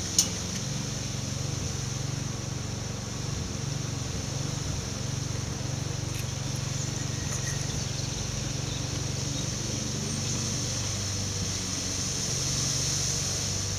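Steady outdoor background: a constant low hum under a constant high-pitched hiss, with one sharp click just after the start. The bird makes no sound.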